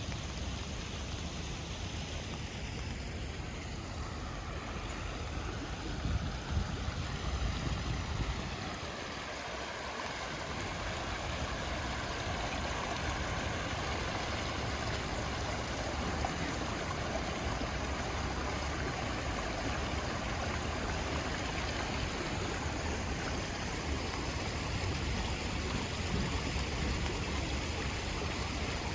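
Steady rain falling, an even hiss of water. A low rumble swells briefly about six to eight seconds in.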